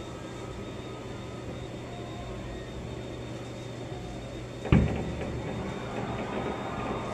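A firework bursting with a single sharp boom about two-thirds of the way in, muffled through an office window, followed by a rougher, crackling noise. A steady low hum runs underneath.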